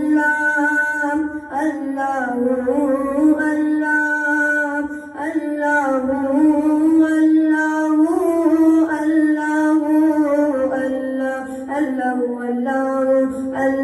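A boy's solo voice reciting a Punjabi naat without instruments, holding long drawn-out notes that waver and slide in pitch.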